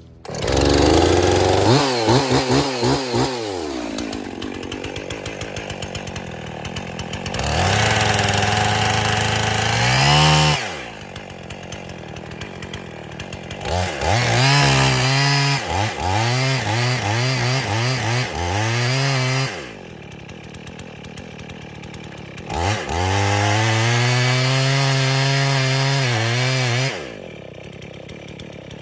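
Two-stroke chainsaw running in four bursts at high speed of a few seconds each, dropping back to a lower idle in between.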